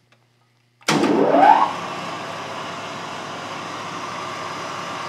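24-inch Cincinnati metal shaper's electric motor switched on about a second in, its whine rising quickly as it comes up to speed, then running steadily.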